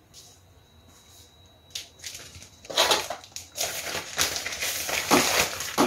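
Plastic courier mailer bag crinkling and rustling as it is handled and pulled open, starting about two seconds in.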